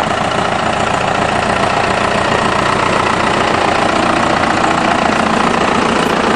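Case 580B backhoe loader's engine idling steadily.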